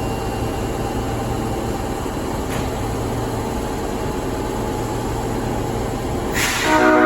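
Steady hum of an Osaka Metro 22 series subway train standing at the platform. Near the end comes a short hiss of air, then the train's air horn starts its departure blast, a loud chord of several tones. This horn is known for sounding off, unlike the normal horn.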